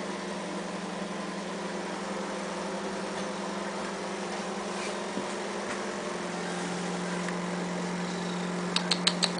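Steady low electrical hum of a running appliance motor, with a few faint sharp clicks near the end.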